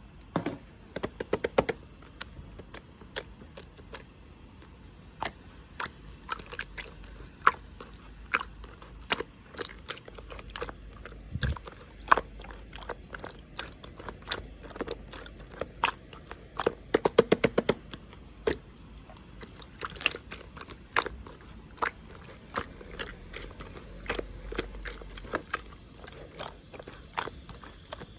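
Clear slime being pressed and stretched by hand, giving irregular sharp clicks and pops from trapped air. There are quick runs of pops about a second in and again about two-thirds of the way through.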